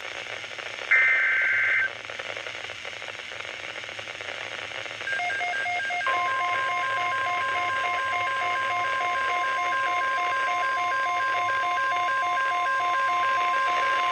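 NOAA Weather Radio alert over a hiss of radio static. About a second in comes a short warbling data burst from the SAME alert header. From about five seconds an evenly pulsing beep starts, and a second later the steady 1050 Hz weather-radio warning alarm tone joins it, the signal that a watch or warning message follows.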